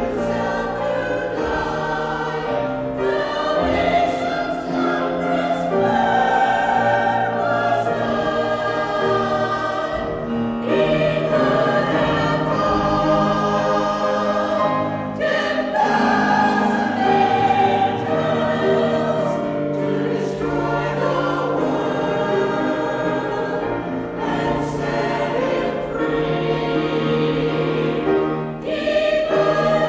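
Church choir of mixed men's and women's voices singing.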